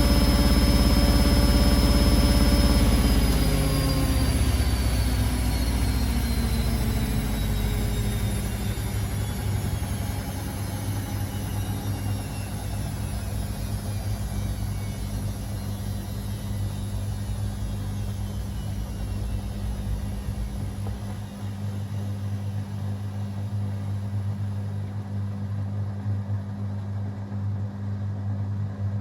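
Beko WA 1050 washing machine spinning down from a high-speed spin: the motor's steady whine starts falling in pitch about three seconds in and fades over several seconds, leaving a steady low hum.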